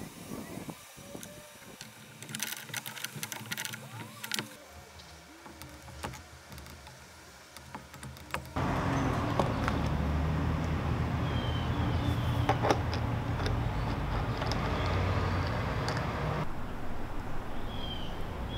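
Teflon thread-sealing tape being pulled off its roll and wrapped onto a threaded pipe fitting, with small crinkles and clicks, then brass fittings clicking as they are handled and threaded together. About halfway through, a louder steady background rumble comes in and runs under the handling.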